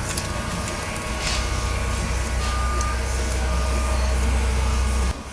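A low, steady mechanical rumble, like a large engine or machine, with a few short evenly pitched beeps over it. The rumble grows about a second in and cuts off abruptly just before the end.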